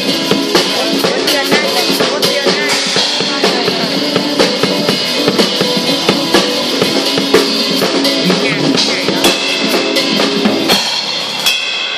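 Drum kit played along to a recorded pop backing track: kick drum, snare and rimshot strokes keeping a steady beat over the music. About eleven seconds in the low end drops away and the music gets quieter.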